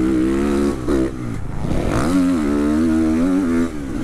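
Triumph TF 250-X motocross bike's 250 cc single-cylinder four-stroke engine revving under throttle. The sound breaks off briefly about a second in, and about two seconds in the revs fall and climb again.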